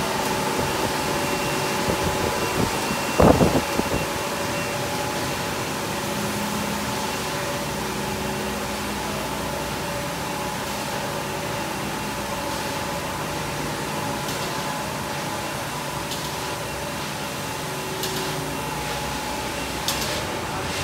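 Steady mechanical hum of an instant noodle production line's machinery running, with several steady tones over it. A single sharp knock comes about three seconds in.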